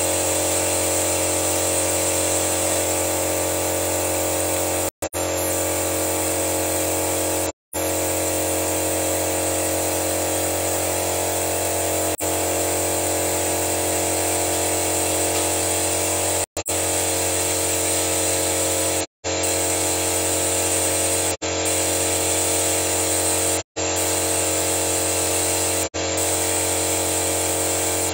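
A motor runs with a steady mechanical hum while a pressurised engine-flush canister feeds cleaning fluid into the engine. The sound cuts out abruptly for an instant several times.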